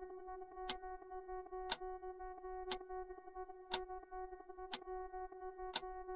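Analogue alarm clock ticking, one sharp tick a second, over a steady held tone.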